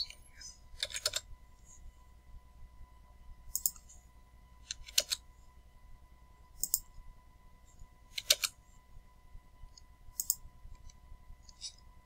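Computer keyboard keys and clicks tapped in short clusters of a few strokes every second or two, as numbers are typed into software fields. A faint steady electrical hum and whine sits underneath.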